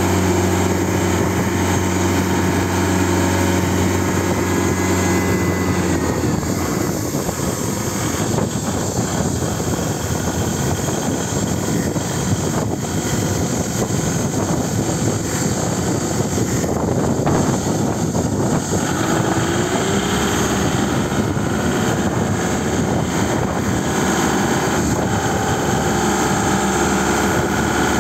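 Diesel engine of an INTERQUIP A Series forklift idling steadily, then running harder and rougher from about six seconds in as the truck drives and raises its block clamp on the mast, with a short rising note later on before it settles back toward a steadier run.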